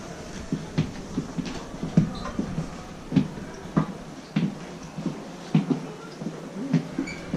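Soft, low thumps in an uneven run, about two a second, over a steady background hiss.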